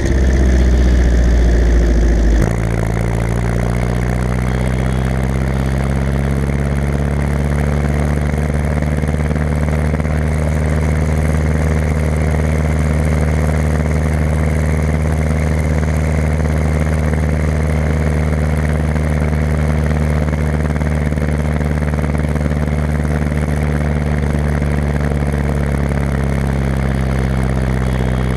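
Ursus C-360 tractor's four-cylinder diesel engine running. It is louder and deeper for the first two seconds or so, then drops suddenly to a steady, even run at lower revs.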